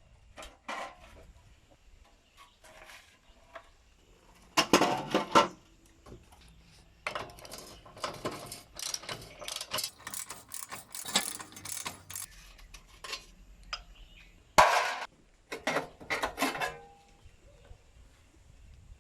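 Hand tools and metal motorcycle parts clinking and knocking in irregular bursts, with a sharp knock about three-quarters of the way through.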